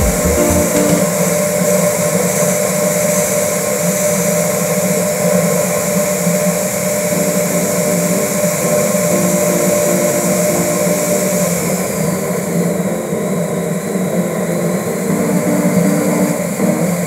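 Steady road and engine noise from a car driving along a paved mountain road.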